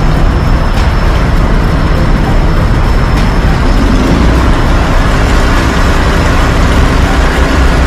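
Fire truck's engine running steadily and loudly, with a faint high steady whine over it for the first half.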